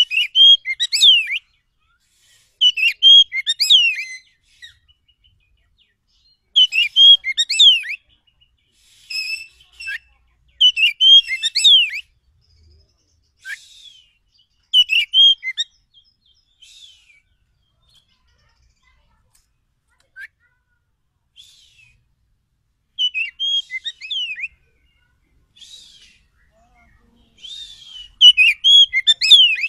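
Oriental magpie-robin (kacer) song: short, loud phrases of clear whistles and quick up-and-down sweeps, each one to two seconds long. They come about eight times, with silent gaps of a few seconds between them, and the longest gap falls in the middle.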